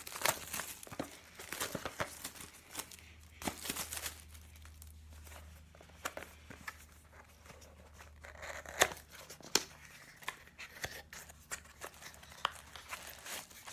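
Packaging being opened by hand: tearing, crinkling plastic and paper, with scattered sharp clicks and snaps as the box is handled.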